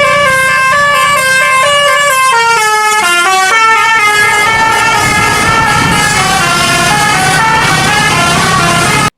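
Basuri 'telolet' multi-tone air horn on a bus playing a quick stepping melody, with the bus engine running underneath. The sound cuts off abruptly at the very end.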